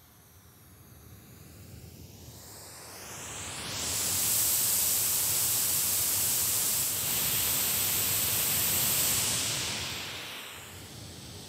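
White noise from a small Bluetooth speaker moved around a shotgun microphone: faint at first while it is behind the mic, swelling a few seconds in as it comes round to the front, staying loud for about five seconds, then fading near the end, its tone sweeping as it moves. The rise and fall show the mic's rejection of sound from behind.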